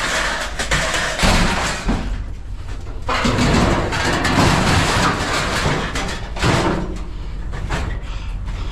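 Thuds, knocks and scraping of curbside scrap being picked up and loaded into a truck, with a sharp knock about a second in and another about six and a half seconds in.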